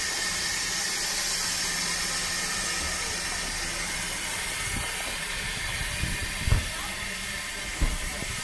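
Steady hiss of steam from a narrow-gauge steam locomotive standing at the station. Two dull low thumps come near the end.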